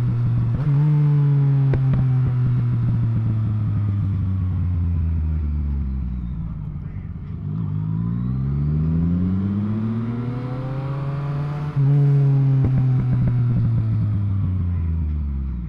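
Yamaha MT-09's three-cylinder engine under way: the revs fall away for several seconds, climb again under acceleration, then drop sharply with a jump in loudness about twelve seconds in as it shifts up a gear, and fall away once more.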